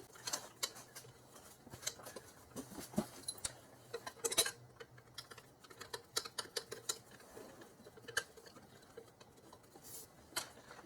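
Scattered light metallic clicks and taps of intake-manifold bolts being handled and set into place, the loudest about four seconds in.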